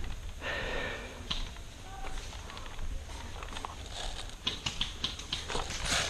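Footsteps of a player moving on foot, with irregular short clicks and rustling from gear and ground.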